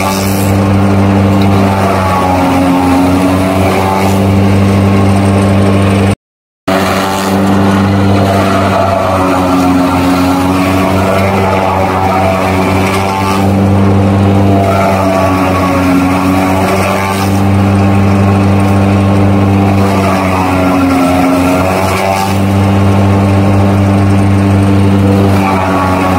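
Heavy diesel engine running steadily, its pitch sagging and recovering every few seconds as if under changing load. The sound cuts out completely for about half a second around six seconds in.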